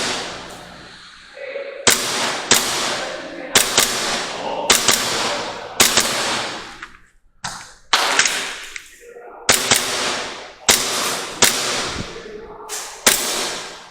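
WE G17 gas blowback airsoft pistol firing a string of shots, mostly in quick pairs with short pauses between. Each shot trails off over about a second.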